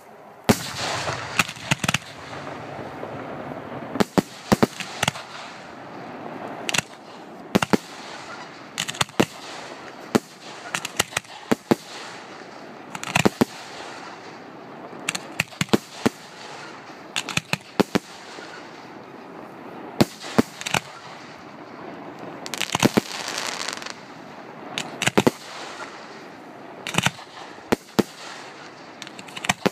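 Fireworks display: aerial shells bursting in quick, irregular clusters of sharp bangs, with a steady crackling hiss between them.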